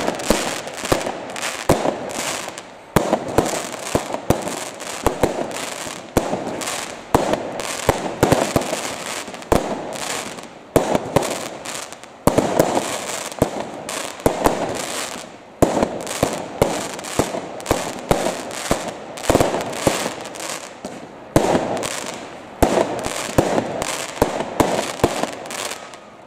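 Aerial fireworks display: a continuous volley of bangs with dense crackling between them, a new loud report coming about every second.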